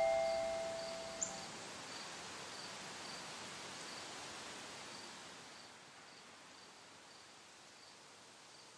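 The last glockenspiel notes ring out and fade within the first second and a half. A faint tick follows, then a soft hiss with a cricket chirping about twice a second, fading toward the end.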